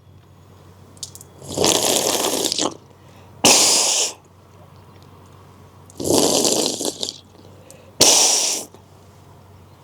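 A person sniffing water up the nose from a cupped hand and then blowing it back out, done twice. Each time there is a long wet sniff followed by a short sharp blow. This is a hand nasal rinse to clean the nostrils.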